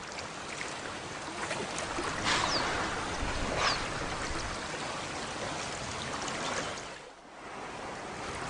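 River water flowing and trickling, a steady rushing hiss that dips briefly about seven seconds in.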